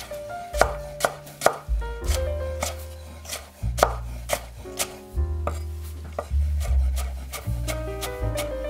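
Chef's knife slicing a carrot into thin strips on a wooden cutting board: crisp chops against the board, about two a second, over background music with a bass line.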